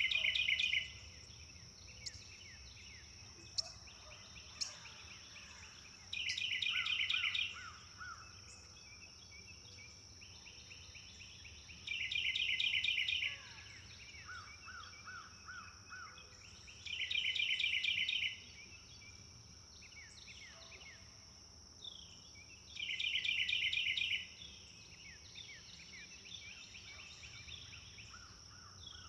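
Forest bird ambience. One bird repeats a fast trilled song phrase about every five to six seconds, and a slower run of lower notes comes in between. A steady high insect drone runs underneath.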